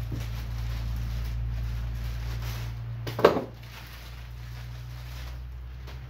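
Plastic bubble-wrap packing being handled and rustled, with one sharp knock a little past halfway, over a steady low hum.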